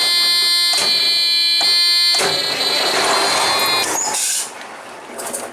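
The truck's dashboard warning buzzer sounds steadily while the starter cranks the hard-starting engine, with a slow pulse about every second. Hard starting like this is traced to poor ground connections. About two seconds in a louder rushing engine sound joins, and the buzzer stops a little before four seconds.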